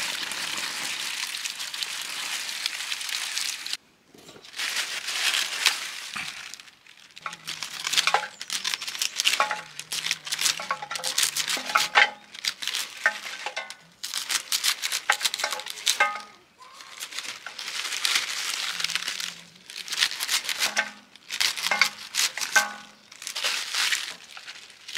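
Water running from a spout onto leafy greens, then, after a cut about four seconds in, crisp wet leafy greens being cut with a small knife into a steel bowl: repeated bursts of crunching and crinkling with sharp snaps of the stems.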